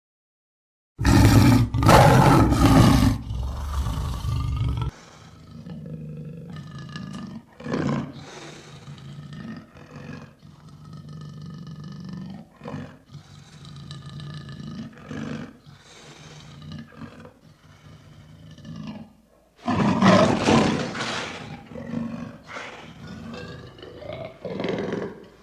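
Lion roaring. A loud roar starts about a second in and lasts about four seconds. A run of shorter, quieter calls follows, then a second loud roar about twenty seconds in, with more short calls near the end.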